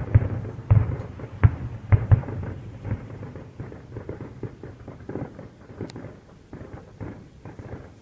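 Aerial fireworks exploding: several loud booms in the first two seconds or so, followed by a quicker run of smaller pops and crackling that fades toward the end.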